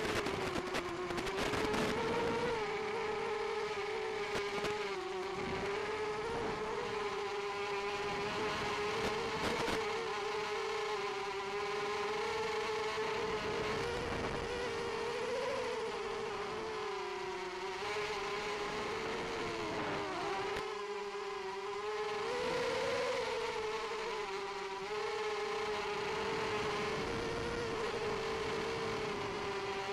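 Mini racing quadcopter's brushless motors and propellers whining in flight, one buzzing tone that rises and dips as the throttle changes. It is picked up by the onboard camera and carried over the analog video link, with a few crackles near the start.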